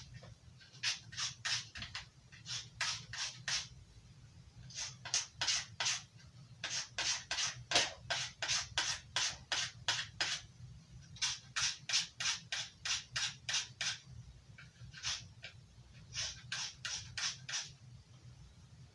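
Knife blade stroked repeatedly along a 160-grit metal sharpening plate, a rasping scrape about two or three times a second, in runs broken by short pauses as the side of the blade is changed.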